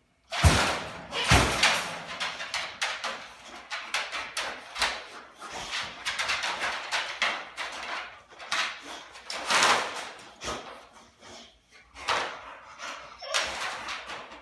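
Wire dog crate rattling and clanking, with its floor pan scraping, as a large dog inside paws and pushes at it, working the pan out from under the crate. It starts suddenly with two loud bangs in the first couple of seconds, then continues as irregular clattering and scraping.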